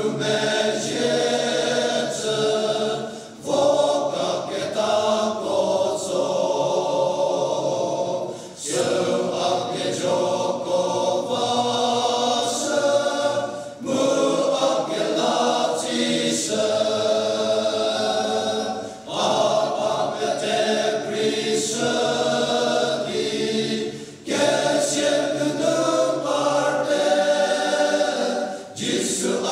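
Men's choir singing, in phrases of about five seconds with short breaks for breath between them.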